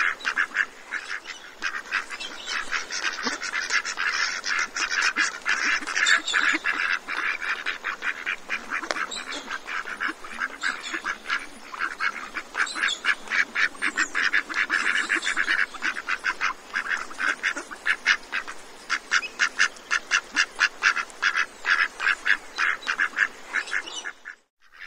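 A flock of ducks calling continuously: many rapid, overlapping quacks. The sound cuts out briefly near the end.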